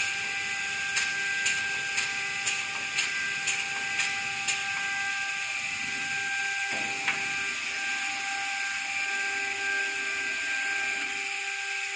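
Gantry loading robot running with a steady mechanical whine of several tones. A string of sharp clicks comes about twice a second for the first four seconds or so, then one more click past the middle.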